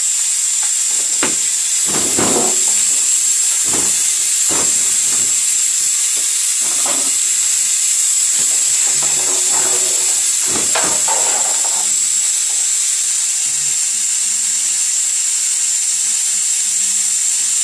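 Steady loud hiss of compressed air blowing through a GEP-2 hot-air plastic welding gun, with its 36 V heater switched on. A few brief knocks of handling sound over the hiss in the first ten seconds or so.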